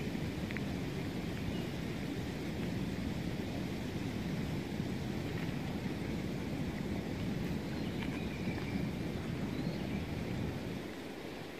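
Steady low rumbling outdoor background noise, even throughout with no distinct events.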